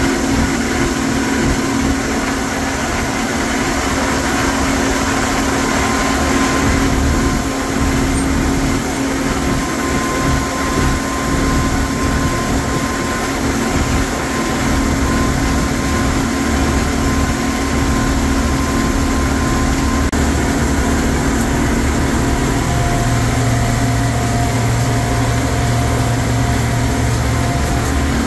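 Allis-Chalmers 190XT Series III tractor's turbocharged six-cylinder diesel engine running steadily while driving, heard from inside the cab, loud with a steady drone. Its low hum deepens slightly near the end.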